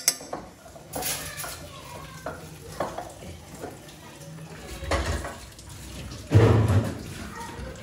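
Kitchen utensils clattering: a spoon and metal dishes knocking against each other in short, scattered clinks, with one louder thump about six and a half seconds in.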